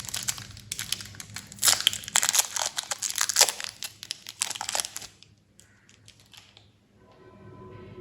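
Plastic and foil candy wrappers crinkling and tearing as candies are unwrapped by hand: dense crackles that stop about five seconds in.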